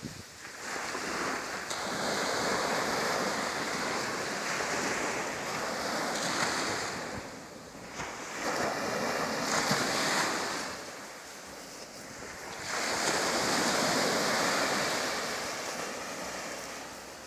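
Ocean surf breaking and washing up the beach, the rushing noise swelling and dying away three times.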